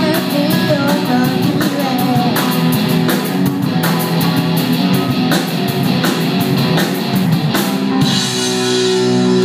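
Live rock band playing: drum kit, guitars and a singer. About eight seconds in the drumming stops and a final held chord rings out with cymbal wash, the end of the song.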